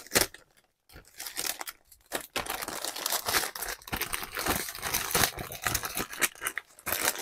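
Clear plastic packaging crinkling and rustling in irregular bursts as strips of bagged diamond-painting drills are handled and slid back into a plastic bag. There are short pauses near the start.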